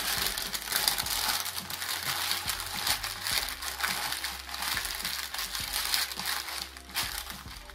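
Baking parchment being folded and pressed closed by hand, crinkling and crackling continuously.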